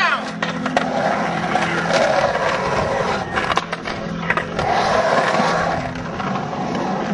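Skateboard wheels rolling on a concrete pool bowl: a steady roar that swells and eases with the carves. A few sharp clacks of the board cut through it.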